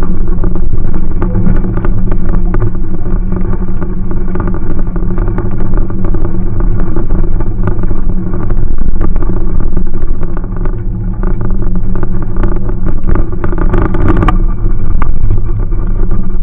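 A Jeep's engine running as it drives along a rough dirt trail, heard from inside the cab, with frequent rattles and knocks from the body over the bumps. A louder clatter comes about 14 seconds in.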